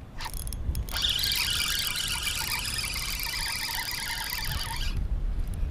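Spinning reel whirring steadily for about four seconds, starting about a second in, with a short sound just before it.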